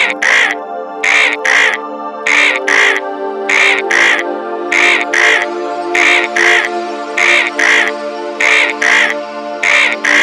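Background music: sustained chords under a steady rhythm of short, bright paired notes, one pair about every 1.2 seconds.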